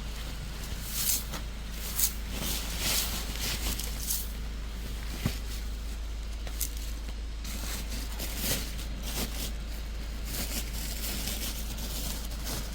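Light kitchen handling: scattered, irregular clicks and knocks of utensils and dishes, over a steady low hum.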